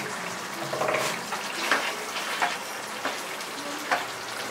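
Thick aloo gobhi curry bubbling in a metal kadai while a steel ladle stirs it. The ladle scrapes and knocks lightly on the pan about four times.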